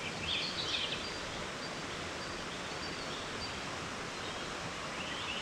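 Steady rush of flowing water on a wooded stream trail, with a few short high bird chirps about half a second in.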